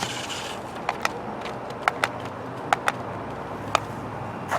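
Small battery-powered remote-control stunt car running, with a steady hiss under sharp plastic clicks and knocks, often in quick pairs, as it bumps and clatters over the ground.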